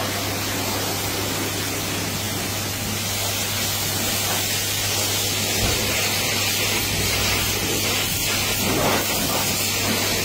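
Pressure washer spraying water onto a car: a steady hiss of the water jet, with a constant low hum underneath.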